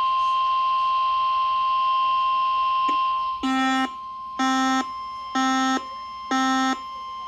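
A steady single-pitch alert tone at about 1 kHz, the NOAA Weather Radio 1050 Hz warning alarm tone that signals a watch or warning is about to be read. About three and a half seconds in it drops back, and a buzzy electronic alert beep starts repeating about once a second.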